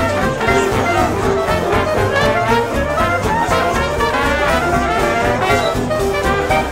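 Jazzy music with brass instruments, playing steadily.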